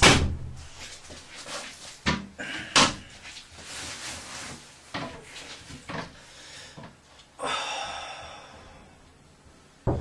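A handful of sharp knocks and thumps in a small tiled bathroom. About three quarters of the way through comes a sudden hiss that fades out over about two seconds.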